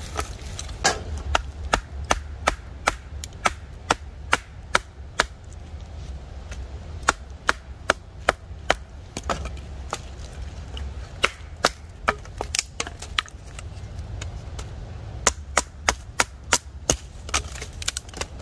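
Large knife splitting small sticks into kindling: a run of sharp wooden knocks, about two a second, with a couple of short pauses. A low steady rumble lies underneath.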